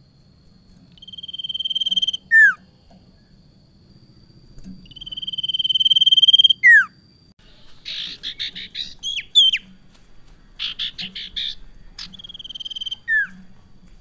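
Common iora (sirtu) singing. It gives two long whistles that swell in loudness, each ending in a sharp falling note. Then comes a rapid buzzy chatter mixed with short slurred whistles, and a third whistle with its falling note near the end.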